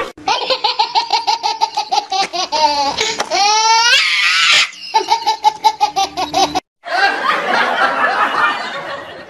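Hearty belly laughter in quick, repeated ha-ha pulses, about six a second, with a rising, wavering squeal about three seconds in. After a brief break it goes on as a denser, noisier stretch of laughter.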